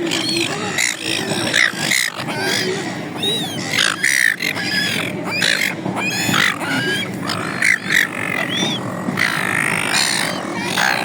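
A flock of gulls calling: many short, overlapping squawking calls, several a second, over a steady low background rumble.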